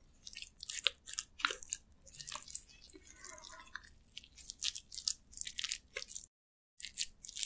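Close-miked wet, sticky crackling and clicking from sauce-coated spicy marinated crab and sauce-soaked rice being handled with gloved fingers and stirred with a wooden spoon in a glass bowl, in a quick irregular string of crisp ticks and squelches. The sound cuts out for about half a second near the end.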